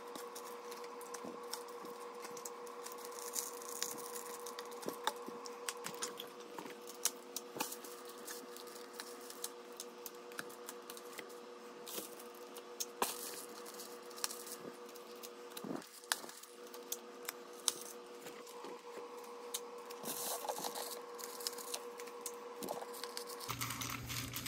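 Fast-forwarded handling sounds of reflective bubble-foil insulation being wrapped around a battery and taped: many quick crinkles, crackles and clicks over a steady hum that stops near the end.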